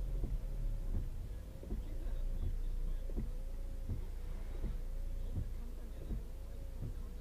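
Sound inside a car's cabin picked up by a dashcam: a steady hum that wavers slightly over a low rumble, with soft regular thumps about three every two seconds.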